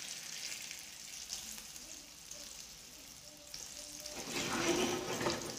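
Rava-coated surmai (seer fish) steaks shallow-frying in oil on a tawa: a steady sizzle that dips in the middle and grows louder about four seconds in.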